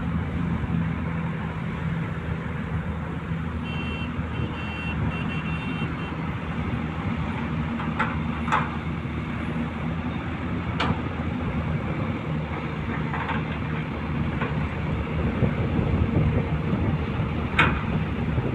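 Long-reach excavator's diesel engine running steadily under work, with a short run of high beeps a few seconds in and several sharp knocks later on.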